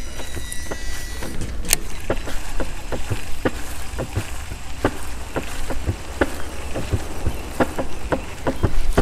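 Wind rumbling on the microphone while a baitcasting reel is cast, its spool giving a brief whine that ends in a click, then cranked to retrieve the lure with a run of short, irregular clicks and ticks.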